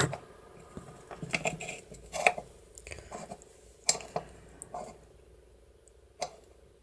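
Small metallic clicks and taps from the steel levers and bolt of an opened mortise bolt lock being worked by hand. There are about eight separate clicks, the loudest about two seconds in.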